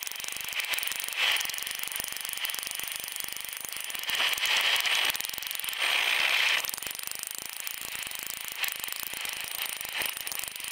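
Rapid, machine-driven hammering of a pneumatic air hammer with a punch bit striking steel, with louder stretches about a second in, around four to five seconds in, and around six seconds in.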